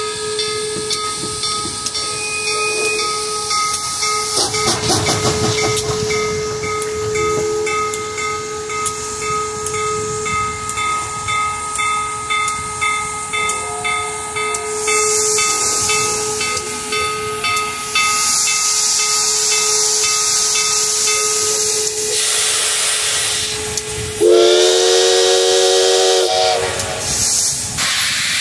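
Steam locomotive US Sugar 148 hissing steam, in louder bursts about halfway through, over a steady whine. Near the end its whistle sounds one blast of about two seconds, a chord of several tones.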